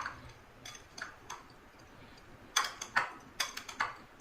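A spoon clinking and scraping against a vessel while cooked lemon rice is stirred and mixed: a few separate clinks, then a quick run of them about two and a half seconds in.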